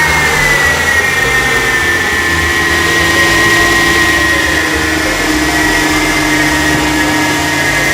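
Mercedes-Benz with its 7-speed automatic transmission running, giving off a steady high whine over the engine rumble; the whine dips slightly in pitch about a second in and then holds. This is the kind of abnormal transmission noise that signals internal damage to the gearbox.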